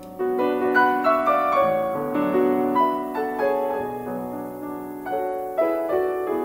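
Background piano music: a slow run of ringing, overlapping notes.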